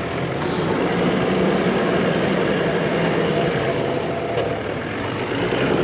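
Four-wheel-drive vehicle driving, its engine running under a steady rushing noise.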